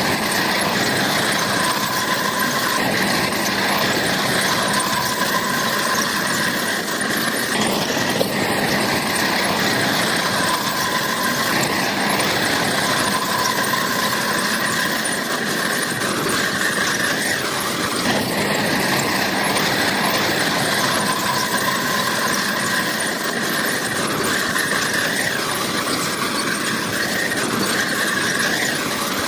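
Bulldozer working, with a high metallic squeal that comes and goes every few seconds over its steady engine noise.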